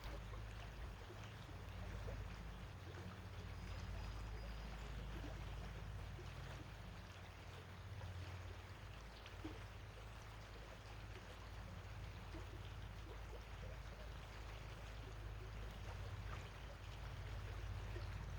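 Faint, steady rush of a flowing creek, with a low rumble underneath and a few light ticks.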